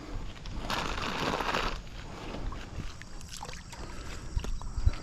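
Water splashing and sloshing around a kayak, with one longer wash of water about a second in, followed by a few light knocks and drips.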